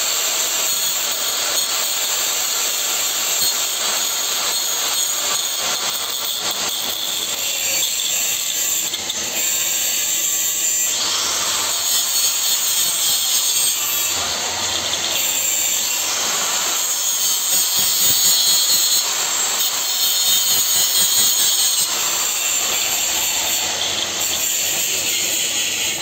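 Angle grinder grinding on a welded metal pipe joint: a loud, steady high hiss without a break.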